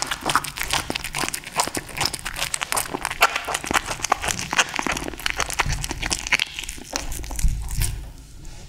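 A kitten chewing and tearing at a chunk of raw tuna: a dense run of rapid wet smacks and clicks from biting and licking, easing off a little near the end.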